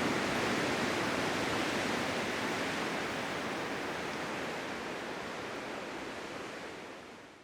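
Blizzard wind ambience: a steady, even rushing noise that slowly falls in level and fades out near the end.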